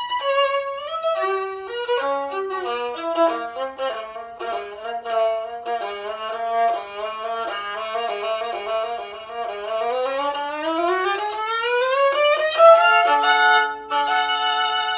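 Solo 1/4-size Joseph LT model 800 violin being played as a sound test. Quick notes step downward to the lowest string, then the line climbs steadily in pitch for about three seconds and ends on two notes held together.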